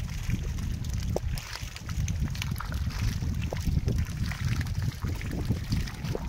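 Uneven low rumble of wind buffeting the microphone, over the faint trickle and slosh of shallow floodwater, with scattered small clicks and splashes.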